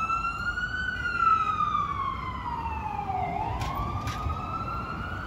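FDNY ambulance siren wailing, falling slowly in pitch over the first few seconds and then rising again, over low city traffic rumble.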